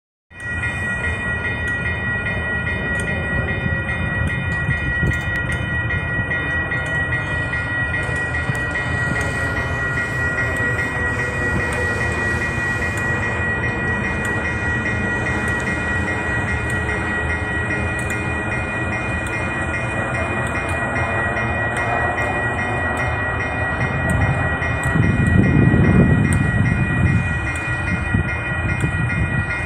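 Railway level crossing warning bells ringing steadily while a diesel train approaches, its rumble growing under the bells. A louder swell of low rumble comes about 25 seconds in.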